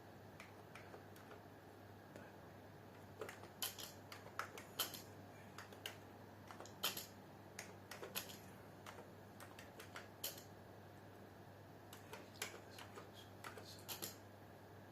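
Typing on a computer keyboard: irregular key clicks begin about three seconds in, some in quick runs, over a faint steady hum.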